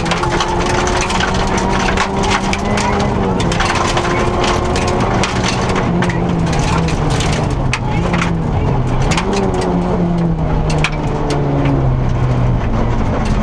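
Rally car engine heard from inside the cockpit, running hard on a gravel stage, its revs dipping and climbing again several times through gear changes. Gravel and stones clatter against the underbody in frequent sharp cracks.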